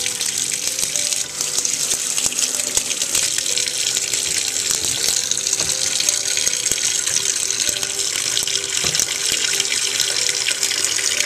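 Kitchen tap running a thin, low-pressure stream into a stainless steel sink, splashing steadily onto soapy water as foam builds up in the basin.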